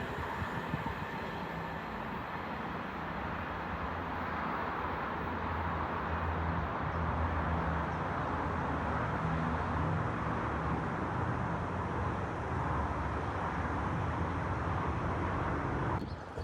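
Voyager diesel-electric train running steadily, a low engine hum under a broad rumble, swelling slightly in the middle and cutting off suddenly near the end.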